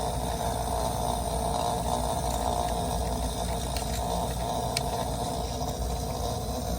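Refrigerator compressor on a 3-in-1 hard-start kit giving a steady, rough low hum. It does not sound good, the sign of a failing compressor.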